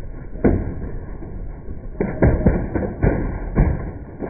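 Combat robot's horizontal spinning bar striking an opponent robot: one sharp metal hit about half a second in, then a quick run of five or six hits and clatters as the opponent is knocked into the air.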